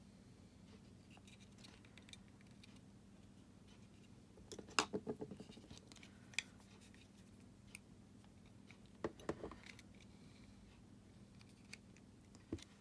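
Small plastic clicks and snaps as a Fiat 500 flip-key fob's plastic shell is handled and prised apart with a screwdriver: a quick cluster of clicks about five seconds in, another few around nine seconds, and single clicks between. A faint steady hum lies underneath.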